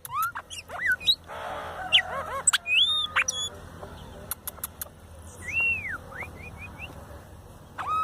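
Xexéu-de-bananeira song: a string of clear whistled notes that rise and fall in arcs. A harsher, buzzy call comes about a second and a half in, and a few sharp clicks come near the middle.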